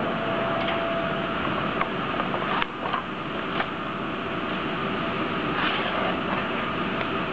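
Steady machine noise, with a thin tone during the first second or so and a few sharp clicks about a third of the way in.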